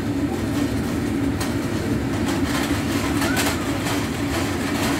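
Kitchen range hood fan running with a steady low hum, while metal tongs click and scrape against a wok as noodles are stir-fried; the clicks come in a cluster around the middle.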